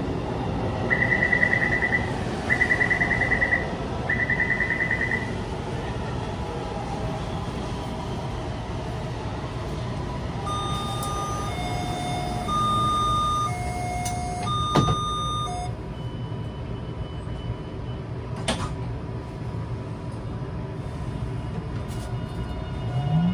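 Inside a Taipei Metro C321 train car at a station stop, over a steady rumble. Three buzzy beeps sound in the first few seconds. About ten seconds in, the door-closing chime plays a high-low two-note tone three times, and the doors knock shut. Near the end the traction motors begin a rising whine as the train starts to move.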